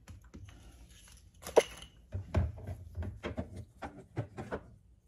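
A run of light taps and knocks from handling Maria cookies, a glass baking dish and a plastic blender jar, with one sharp clink that rings briefly about a second and a half in. The knocks come quickly for the next two seconds, then stop shortly before the end.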